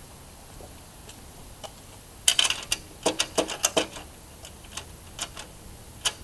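A quick run of sharp clicks and taps, five or so a second, starting about two seconds in and lasting under two seconds, then a few scattered ticks over a low steady background.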